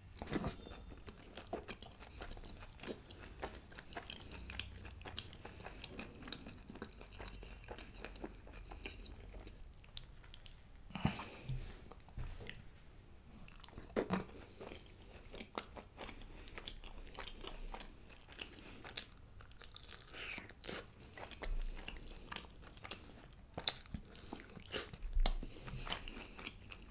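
A person eating mutton curry with garlic naan close to a microphone: biting, wet chewing and small mouth clicks, with a few sharper, louder bites about eleven, fourteen and twenty-five seconds in.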